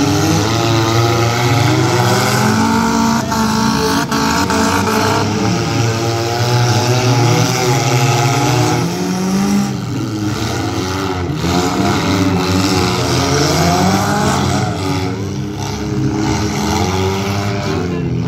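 Several demolition-derby cars' engines revving and easing off as they race around the track, their pitches rising and falling over one another. A couple of sharp knocks come about three and four seconds in.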